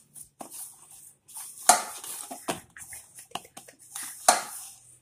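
Hands kneading stiff rice-and-urad-dal murukku dough in a metal bowl: the dough is pressed and pushed against the bowl, with rubbing and light knocks of the bowl, two of them louder, about a second and a half in and near the end.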